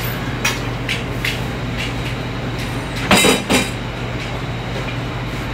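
Busy commercial kitchen: a steady hum from the ventilation hood, with short clatters of metal utensils and pans on the cooking line, the loudest cluster of clatter about three seconds in.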